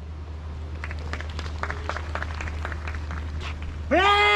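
A drill commander's shouted word of command, drawn out into one long call that rises at the start and then holds steady. It begins near the end, after a few faint light clicks.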